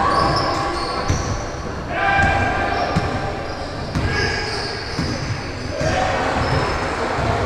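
A basketball being dribbled on a gym floor, bouncing in dull thuds about once a second, under players' and spectators' voices in a large echoing hall.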